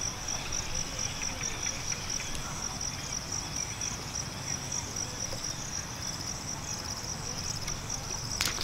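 Insects chirping steadily in a high, rapidly pulsing trill. A macaque's soft splashing in shallow muddy water runs under it, and a loud splash comes right at the end.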